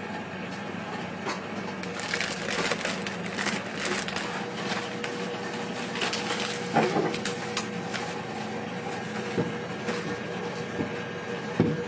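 Plastic piping bag crinkling and rustling as macaron batter is scraped into it and the filled bag is handled, in a run of crackles that thins out after about five seconds, with a few soft knocks. A steady low hum runs underneath.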